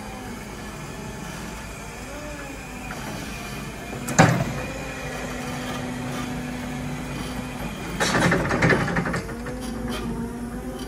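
Crown electric reach truck on the move: a steady motor hum, with a sharp clank about four seconds in and a rattling clatter around eight seconds in.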